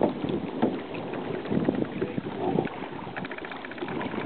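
Wind buffeting the microphone over open water, with the wash and lap of choppy water; a brief run of rapid faint ticking about three seconds in.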